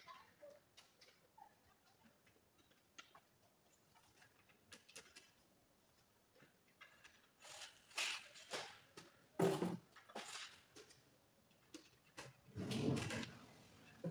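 Insulated electrical wires being pulled through plastic trunking and into switch boxes: scattered faint clicks and rustles, then louder scraping rustles of cable against plastic about halfway through and again near the end.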